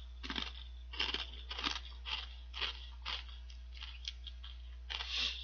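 Kettle-cooked potato chips crunched and chewed in the mouth, a crunch about every half second, with a louder crunch near the end as another chip is bitten.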